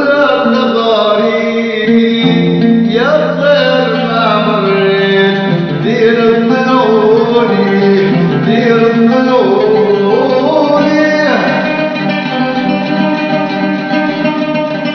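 Oud plucked in a continuous melodic passage while a man sings long, bending phrases over it.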